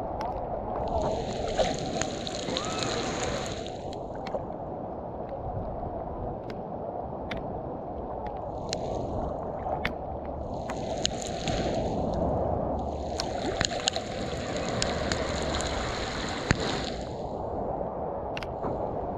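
Heavy rain falling on the sea surface: a steady hiss of drops with scattered sharp ticks, and a higher hiss that swells and fades several times, over water sloshing close by.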